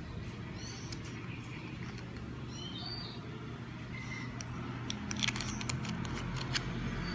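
Small sharp clicks and taps of metal handling about two-thirds of the way in, as the screw-on aluminium end cap of a flashlight goes back over its USB plug. Under them runs a steady low background rumble, with a few faint high bird chirps in the first half.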